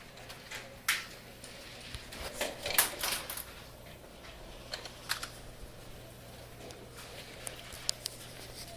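Scattered sharp clicks and snaps at irregular intervals: a strong one about a second in, a quick cluster a little before three seconds (the loudest), and lighter ticks later.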